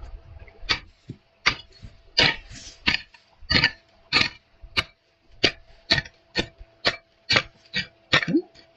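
A hoe chopping repeatedly into dry, sandy soil, about two sharp strikes a second, as the ground is dug open for a bamboo-whip shoot.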